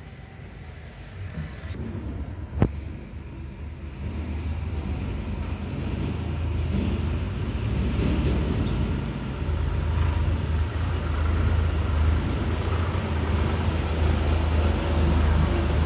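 Kitten purring close to the microphone: a steady low rumble that grows louder as the phone nears the cat. A single sharp click about two and a half seconds in.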